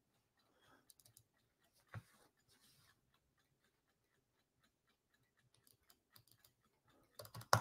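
Near silence with a faint single click about two seconds in, then a quick run of sharp computer mouse and keyboard clicks near the end, as someone keeps clicking at a program that will not open.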